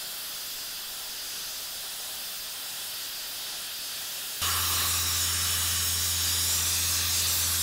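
Sandblaster nozzle hissing steadily as it blasts paint and body filler off the steel cab of a 1955 Willys Jeep pickup. About four and a half seconds in, the hiss jumps louder and a low steady hum joins it.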